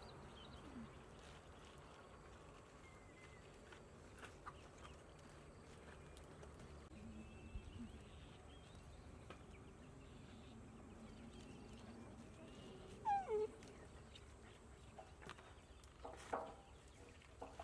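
A puppy gives a short whine that falls in pitch, about two-thirds of the way in. Around it are soft rustles and knocks as leafy vegetables are handled.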